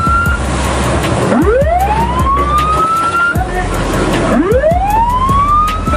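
Patrol vessel's siren sounding in slow rising wails, each sweeping up for about two seconds and cutting off, starting again about a second in and about four seconds in, over the steady noise of engines and rushing sea water.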